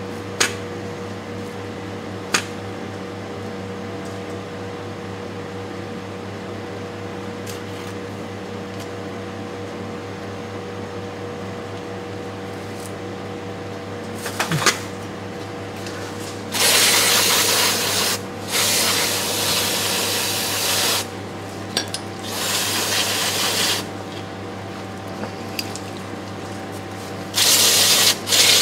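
Aerosol parts cleaner sprayed in several hissing bursts of one to three seconds onto the transmission case, washing off leaked oil. Before the spraying there is a steady low hum and a few sharp clicks.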